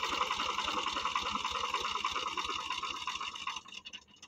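Tractor diesel engine running with a rapid, even beat, dying away a little before the end.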